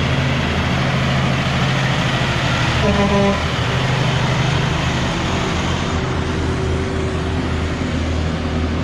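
Diesel engine of a heavy tractor-trailer pulling up a steep grade as it passes close by, a steady low drone, with a brief pitched tone about three seconds in.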